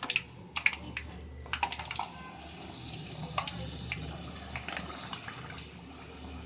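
Papdi puris deep-frying in hot refined oil in a kadhai: a steady sizzle with scattered sharp crackles and clicks as they are pressed down in the oil with a steel slotted spoon.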